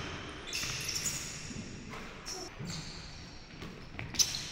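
Basketball bouncing on a hardwood gym floor during a pickup game, with sneakers squeaking. A sharp bounce stands out near the end, and the sounds echo around the gym.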